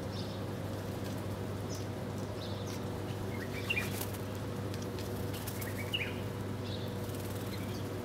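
House sparrows chirping while they feed: short scattered chirps, two louder ones about halfway and three quarters in, over a steady low hum.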